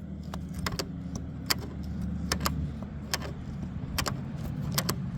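Sharp, irregular metallic clicks and ticks from a stuck railroad turntable being forced round by hand, over a steady low hum.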